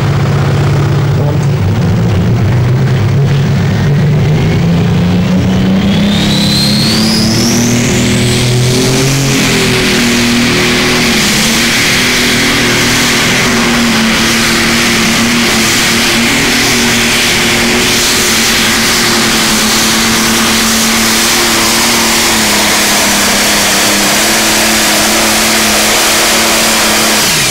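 John Deere Pro Stock pulling tractor's turbocharged diesel engine at full load pulling the sled. The revs climb over the first nine seconds or so with a rising turbo whine, then hold steady at high revs for the rest of the pull.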